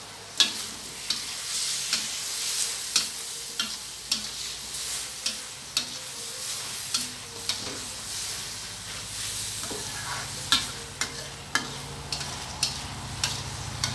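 Spatula clacking and scraping against a stainless-steel wok while stir-frying bamboo shoots, with the food sizzling. The sharp strikes come irregularly, about one or two a second, over a steady hiss.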